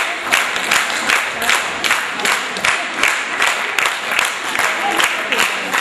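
Audience clapping in unison, a steady rhythmic applause of about four claps a second.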